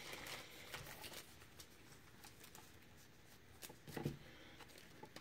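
Faint, scattered flicks and rustles of a stack of baseball trading cards being thumbed through, each card slid from the front of the stack to the back.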